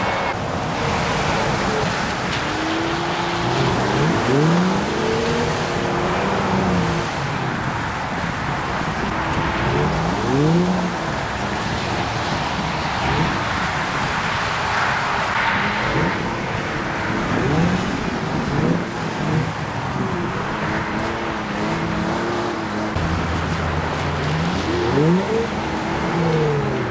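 Vehicle engines revving up and falling back again and again while a car stuck in slushy snow is towed and pushed.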